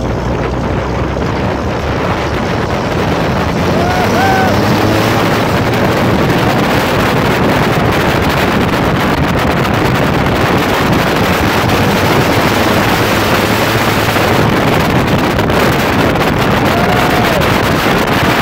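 Wind rushing over the microphone on a towed trailer, with the diesel pickup's engine and road noise underneath. It grows louder over the first few seconds as the truck picks up speed, then holds steady.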